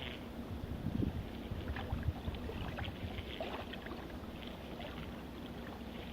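Strong wind buffeting the microphone in low rumbling gusts, strongest in the first couple of seconds, with small waves lapping and ticking against the shore.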